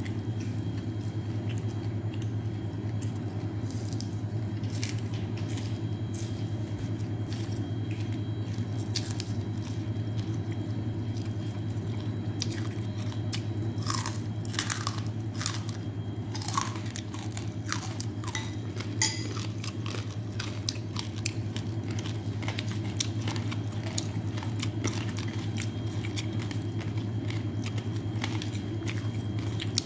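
A person chewing and crunching mouthfuls of papaya salad with rice noodles, with wet mouth clicks and smacks, most of them about halfway through, over a steady low hum.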